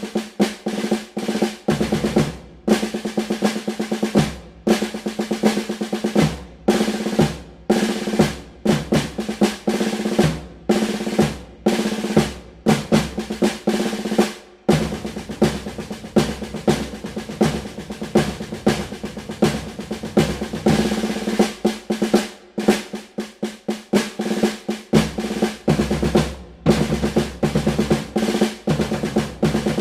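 Snare drum played in quick rolls and clusters of hits with short breaks between them, running into one long unbroken roll in the middle.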